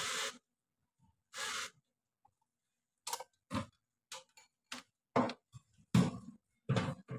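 Two short rustling bursts, then from about three seconds in a run of irregular clicks and light knocks, roughly two a second.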